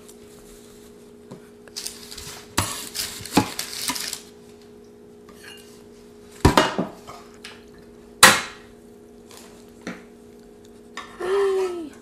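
Cooking clatter: metal utensils, a tray and a frying pan knocking and scraping, with crackly handling of crisp Doritos-crusted tortillas, over a faint steady hum. Two sharp knocks stand out, about six and a half and eight seconds in.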